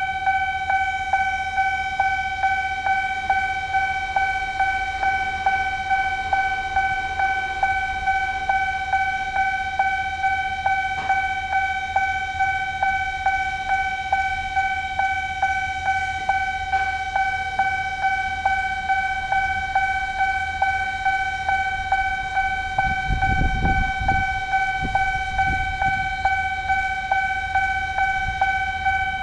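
Railway level-crossing warning bell ringing, an electronic ding repeating about twice a second. About 23 seconds in, a low rumble rises and passes over a few seconds.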